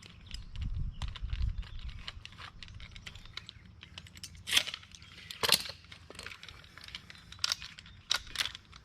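Sharp metallic clicks and clinks of a band-clamp tool being worked on a center-punch hose clamp as the band is pulled tight and locked. Louder snaps come about halfway through and again near the end, and a low rumble runs through the first couple of seconds.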